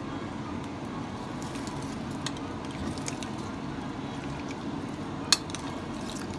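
Raw pork chunks being stirred in a liquid marinade with a metal spoon in a glass bowl: soft wet squishing, with one sharp clink of the spoon against the glass about five seconds in.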